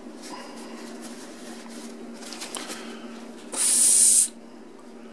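A sharp hiss of breath lasting under a second, about three and a half seconds in: air blown by mouth through a rinsed fountain pen section to clear the water out of it. Before it come light clicks of the pen parts being handled, over a steady low hum.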